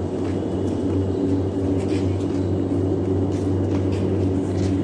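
Large axial fans of a tea factory's withering troughs running with a steady low hum. The fans blow air through the tea leaves to dry out their moisture.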